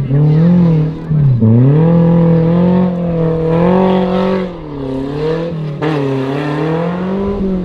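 Off-road 4x4's engine revving hard and unevenly as the throttle is worked, its pitch rising and falling, with two sudden brief drops in revs, about one and a half seconds and about six seconds in.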